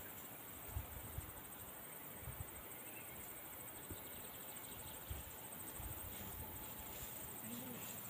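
Insects chirping in a faint, steady, fast-pulsing high trill, with a few soft low thumps.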